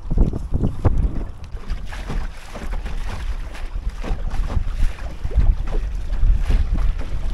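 Wind buffeting the microphone, with water splashing and slapping irregularly against the hull of a small sailing boat under way on the wind in a gusty breeze.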